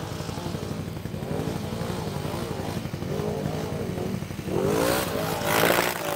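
ATV engine revving up and down as the quad drives through deep creek water. About four and a half seconds in it revs up sharply and water splashing and spraying joins in, loudest near the end.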